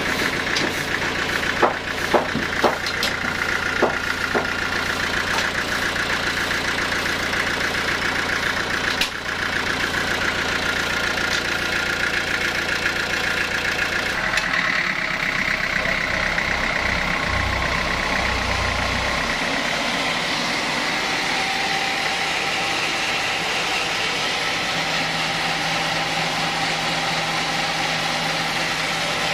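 Sawmill band saw rig running steadily, driven through a set of V-belts, a continuous mechanical drone. A few sharp knocks come in the first four seconds as the squared teak log is handled on the saw carriage.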